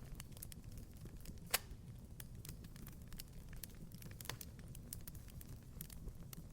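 Wood fire crackling in a fireplace: a steady low rumble under scattered small snaps, with a sharper pop about one and a half seconds in and another about four seconds in.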